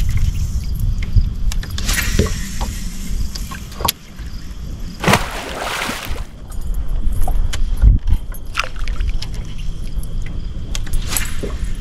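Wind buffeting the microphone aboard a fishing boat, with water noise and a low steady rumble. A loud splashing whoosh comes about five seconds in, and there are a few small clicks from rod and reel handling.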